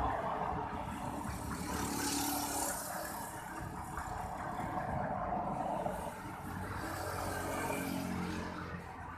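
Passing road traffic: cars and a pickup truck driving by on the street, with engine and tyre noise swelling and fading as each one passes.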